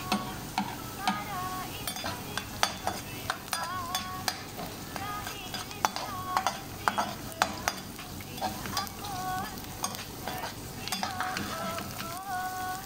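Metal spoon stirring and scraping chopped onions around an aluminium frying pan, with many sharp clinks against the pan, over the steady sizzle of the onions sautéing in oil.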